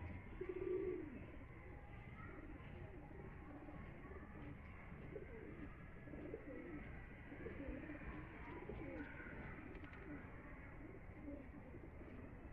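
Domestic pigeons cooing, many low, wavering coos overlapping one another throughout, with the loudest about half a second in.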